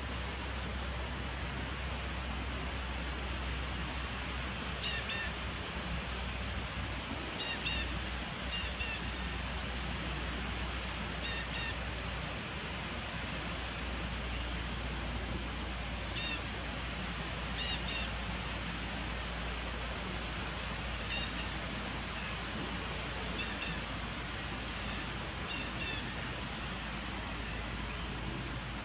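Honeybees humming steadily at the entrance of a crowded nuc hive, over a low rumble and a steady high hiss. A small bird chirps short, paired notes every few seconds.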